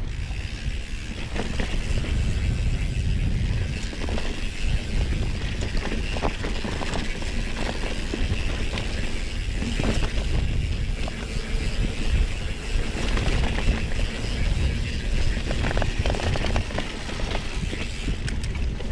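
Mountain bike being ridden along a sandy dirt trail: a steady low rumble of tyres and wind on the microphone, with frequent small rattles and clicks from the bike.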